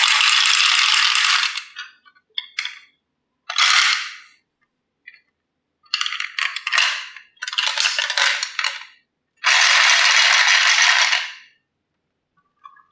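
Marbles rolling and clattering down a HABA marble run in bursts of rattling: a long run at the start, a few single clicks, then several more rattling runs, the last about two seconds long ending near the end.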